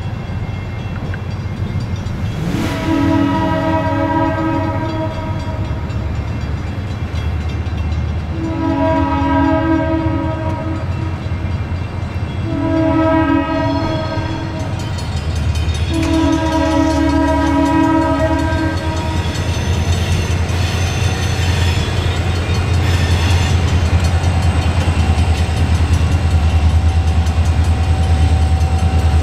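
Four blasts on the lead diesel locomotive's Nathan M3 chime horn, which is badly out of tune and in need of re-voicing. The last blast is the longest. Under the horn the locomotive's low engine rumble grows louder from about halfway as the train approaches.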